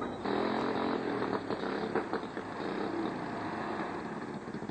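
Small go-kart engine catching about a third of a second in and running steadily, loudest at first and easing off a little.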